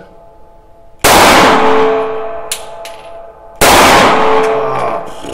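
Two shots from a Glock 26 9x19 mm pistol, about two and a half seconds apart, each very loud with a long ringing decay in the small shooting booth.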